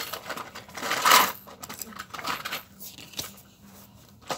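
Handling noise from a wooden skewer held close to the microphone: a short rustle about a second in, then scattered light taps and clicks.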